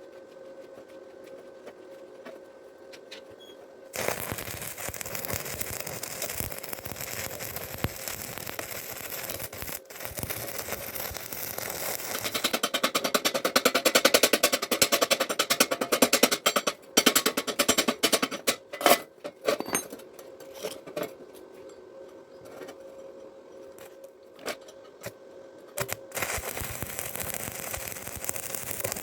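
Electric arc welding on steel rebar: a dense, crackling arc starting about four seconds in, loudest in the middle, then breaking off near twenty seconds and starting again near the end.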